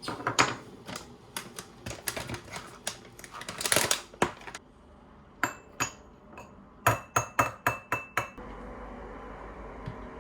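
Kitchen clatter: dishes and utensils knocking together, then a quick run of ringing clinks of cutlery against glassware, about seven in a row. A steady hiss comes in near the end.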